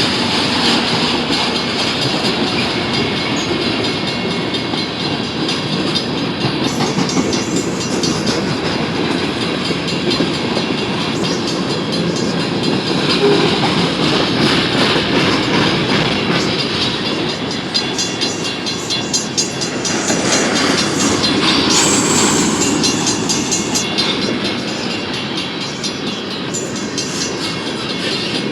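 Cars of a manifest freight train rolling past: steady, loud noise of steel wheels on the rails, with faint repeated clicking.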